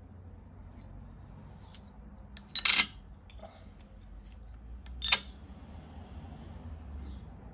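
Two metal bottle caps catch one after the other on the hidden magnet in an oak bottle-opener board, each with a sharp metallic clack. The first, about two and a half seconds in, is a slightly longer rattle. The second, about two and a half seconds later, is a single crisp click.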